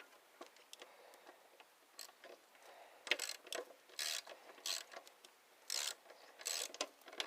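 Ratchet socket wrench being worked in short strokes, about six bursts of ratcheting in the second half, with a few faint clicks before them.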